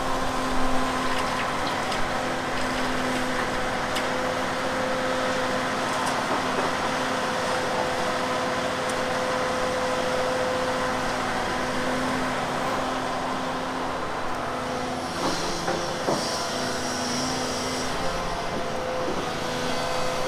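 Hyundai HX220AL tracked excavator's diesel engine and hydraulics running under load, a steady drone with a held whine, while it dumps wood chips and digs into the pile. Some knocks and a brief rattling hiss come about three-quarters of the way through.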